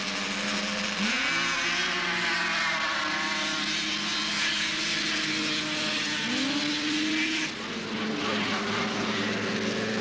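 Racing snowmobiles' two-stroke engines running at full throttle down a grass drag strip, the engine pitch climbing steeply about a second in and again about six seconds in, with a sudden drop in the higher noise near the three-quarter mark.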